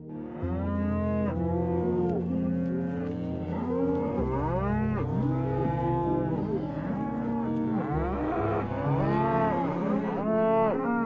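A herd of bovines lowing, with many overlapping drawn-out calls, each rising and then falling in pitch. Sustained low notes of background music run underneath.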